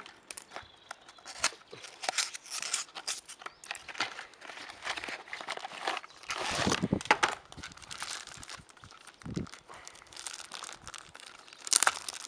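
Plastic packaging bag crinkling and a cardboard toy box rustling as a plastic-wrapped toy train engine is handled and pulled out of its box: irregular crackles, rustles and small taps.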